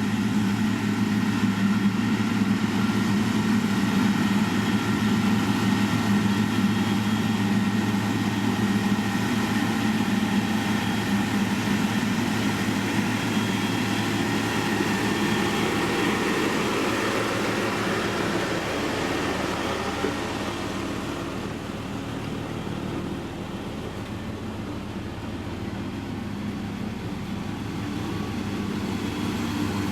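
Heavy construction machine's diesel engine running steadily at a constant pitch. It grows quieter and duller about two-thirds of the way through, then louder again near the end.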